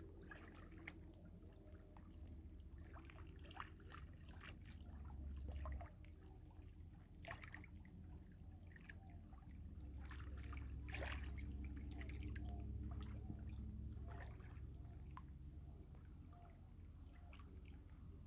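Small ripples lapping at rocks in shallow lake water: soft, irregular little splashes and trickles over a steady low rumble.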